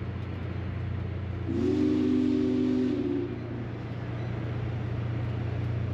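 Train whistle sounding one chord-like blast of nearly two seconds, starting about a second and a half in, most likely the steam whistle of Union Pacific Big Boy 4014. It sounds over the steady low hum of the train's cars rolling slowly past.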